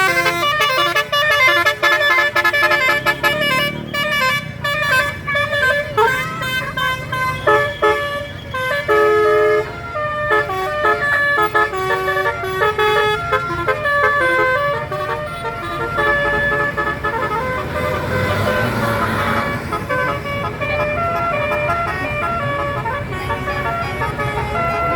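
Telolet basuri musical bus horn playing a fast tune of stepped notes, phrase after phrase, over the rumble of a running bus engine.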